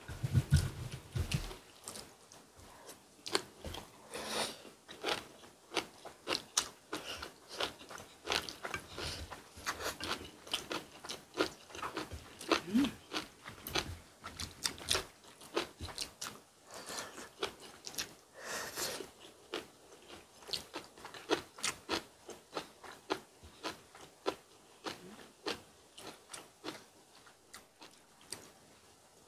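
Close-miked eating sounds of two people at a meal of braised fish, rice and seaweed-stem side dish: chewing and biting, with chopsticks and spoons clicking against bowls in many short, irregular clicks. There is a dull low knock right at the start.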